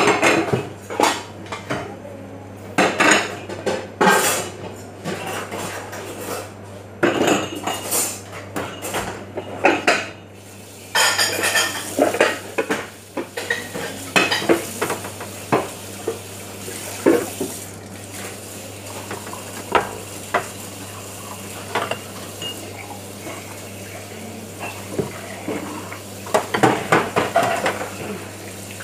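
Ceramic plates, metal trays and cutlery clattering and clinking as dishes are handled and stacked on a kitchen counter, in irregular knocks throughout. Under them runs a steady low hum, and a steady hiss comes in about a third of the way through.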